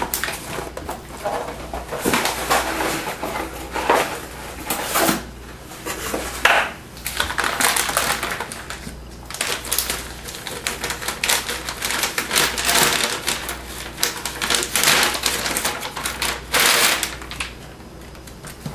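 Crinkling and crackling of a metallized anti-static bag being handled and opened to take a motherboard out, with rustles from the cardboard box; many irregular sharp crackles and clicks.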